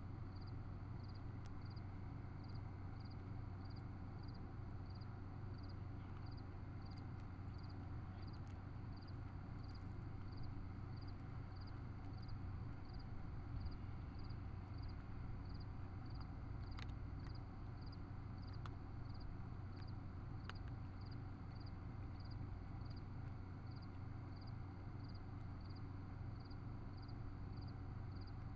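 A cat eating dry kibble from a plastic tub: a few faint, scattered crunching clicks over a trail camera's steady low hum. A faint high pulse repeats evenly about one and a half times a second throughout.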